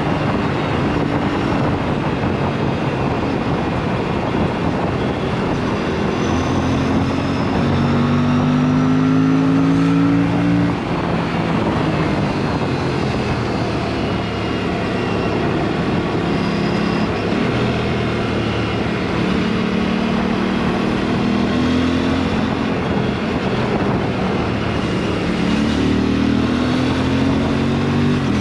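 Aprilia sport bike running with its exhaust dB killer removed, the engine note climbing in pitch as it accelerates through the gears, with a shift about eleven seconds in. Wind rush on the mic runs under it while the bike is moving.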